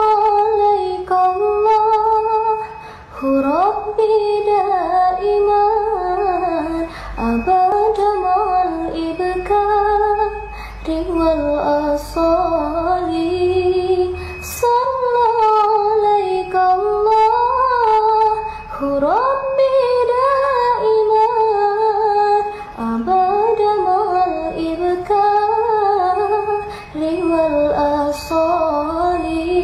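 A woman singing a sholawat in Arabic, a single slow melody with long held notes that glide and bend between phrases, broken by short breath pauses.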